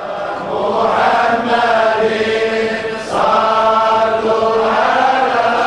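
Men's voices chanting a Sufi samaâ hymn together in unison, long held melodic lines sung by a group, moving to a new note about three seconds in.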